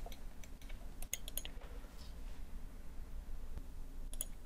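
A few computer mouse clicks, a quick cluster about a second in and two more near the end, over a steady low hum.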